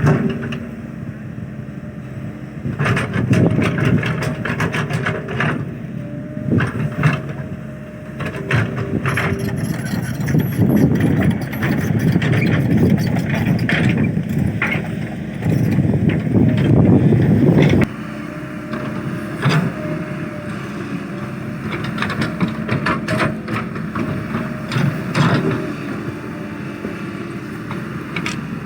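Excavator's diesel engine working under load, surging louder in spells and dropping back suddenly about eighteen seconds in, with many sharp knocks and clanks throughout.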